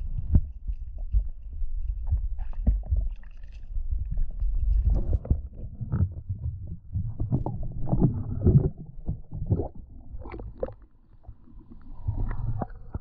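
Muffled underwater rumbling and sloshing with irregular small knocks, heard through a submerged camera's housing.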